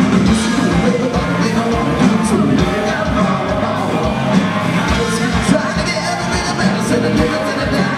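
Live hard-rock band playing loud: electric guitar, a steady drum beat and a singer singing with a shouting rock voice into a microphone over a PA.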